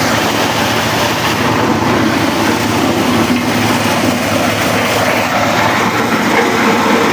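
Large corn sheller for husked maize, with a double blower, running: a loud, steady mechanical clatter and rumble.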